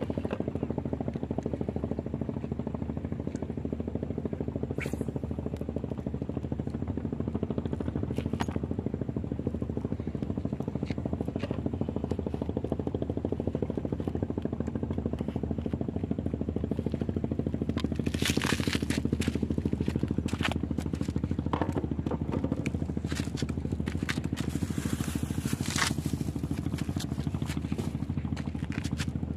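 A steady, low engine hum runs throughout, with scattered sharp clicks and scrapes from fishing tackle being handled, most of them in the second half.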